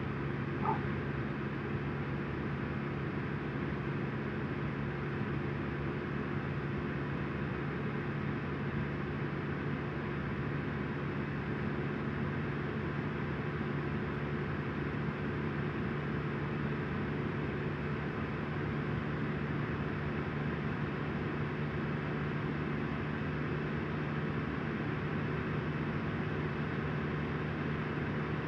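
Steady background hum with hiss, unchanging throughout, with a brief faint chirp about a second in.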